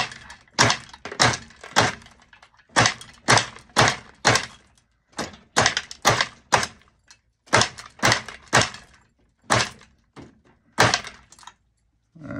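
Glass cane being chopped into murrini slices in a flywheel cane-chopping machine: a sharp snap as each slice breaks off, about two a second, some twenty in all.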